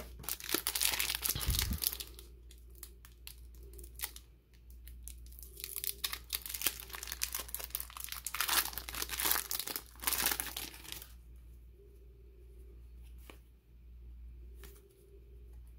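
Foil wrapper of a trading-card booster pack crinkling and tearing open, in two noisy spells, one at the start and a longer one in the middle. Softer clicks of cards being handled follow near the end.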